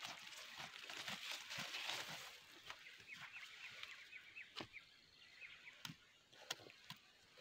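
Machete-type knife jabbed into dry, cloddy soil to open holes for replanting maize seed, giving a few sharp knocks in the second half. Faint bird chirping carries on in the background.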